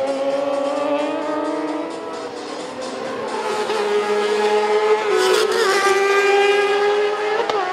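Inline-four Kawasaki racing sportbike engines at high revs, their pitch falling and jumping with gear changes, getting louder about halfway through as the bikes come closer.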